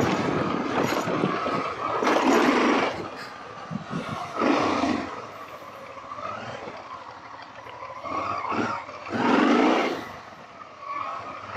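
Honda XL650V Transalp's V-twin engine running at low speed as the motorcycle rides a dirt and sand track, with several loud surges of wind noise rushing over the microphone.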